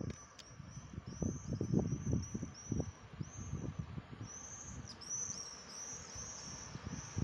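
Small bird chirping: short, high, arched notes repeated about two to three times a second. Low gusts of wind buffet the microphone underneath.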